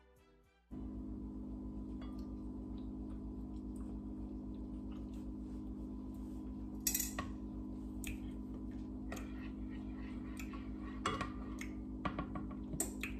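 Metallic clicks and clinks of an electric oven's door and rack as the oven is opened to check wings baking on a foil-lined tray, over a steady low hum that sets in about a second in.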